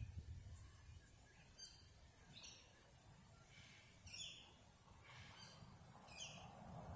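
Faint bird calls: a handful of short, high chirps that slide downward, spaced a second or two apart, over a quiet low outdoor rumble.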